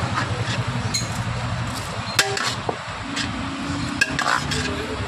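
Clinks of metal against a large aluminium cooking pot as biryani rice is scooped out of it, a few sharp knocks over a steady low background hum.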